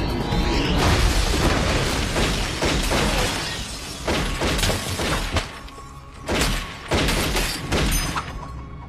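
Action-film crash sound effects: a dense, continuous crashing noise, then a run of separate sharp impacts with breaking glass, over background music.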